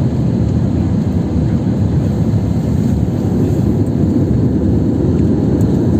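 Steady roar of a jet airliner in flight, heard from inside the cabin: engine and airflow noise, even and unbroken, with most of its weight in the low range.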